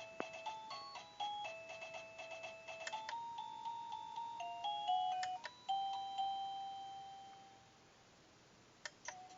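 Wireless doorbell receiver playing its electronic chime tunes one after another: a simple beeping melody, a click about three seconds in, another tune that fades out, then after a short lull another click and the next tune starting near the end.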